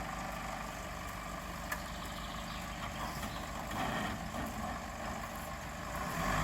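Off-road 4x4's engine idling steadily, with one light click about two seconds in; the engine sound grows louder near the end.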